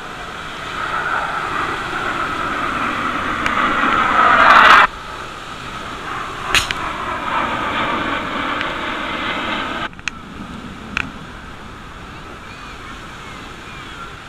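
Jet aircraft flying past, the noise building for a few seconds to a loud peak that falls in pitch, then cut off suddenly about five seconds in. Fainter jet noise follows and drops away sharply again about ten seconds in.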